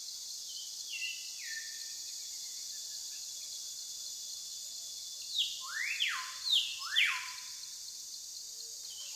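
Wild bird calls over a steady high hiss: a few short falling notes near the start, then four loud whistled notes about halfway through, each sweeping quickly upward.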